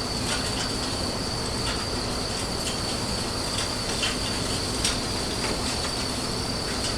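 Steady machinery noise in a ship's boiler room, with a constant high-pitched whine and a few faint scattered ticks.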